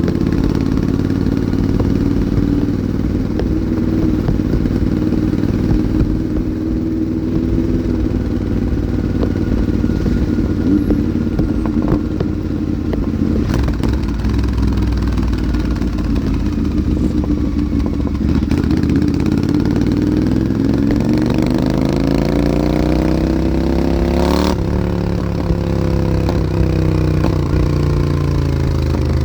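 Royal Enfield motorcycle engine running steadily through its exhaust. About two-thirds of the way in it speeds up smoothly for about five seconds. A sharp click follows, and the engine winds back down.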